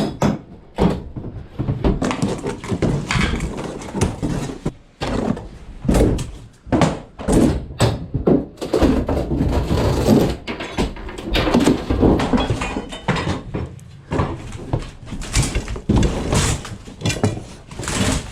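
Irregular thuds, knocks and clatter of wooden debris and household items being handled and dropped during flood-damage cleanup.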